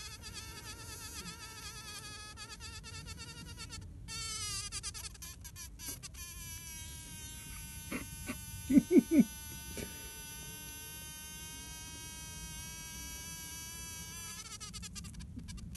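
Bumblebee buzzing: a continuous hum whose pitch wavers for the first few seconds and then holds steady. About eight to nine seconds in come a few short, louder pulses.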